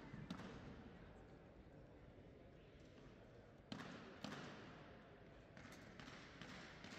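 Quiet background of a large exhibition hall with faint indistinct voices, broken by a few sharp knocks. One knock comes just after the start, two more close together about halfway through, and lighter ticks follow near the end.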